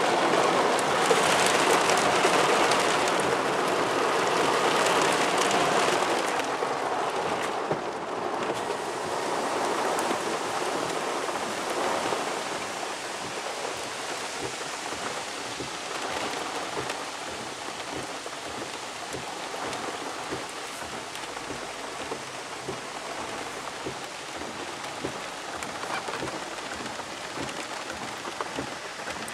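Heavy rain pelting a car's roof and windscreen, heard from inside the car as a dense hiss of drops. Loudest at first, then gradually easing off.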